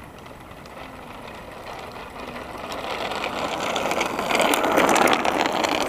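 3DR Solo quadcopter flying in closer, its motor hum and propeller rush growing steadily louder and peaking near the end.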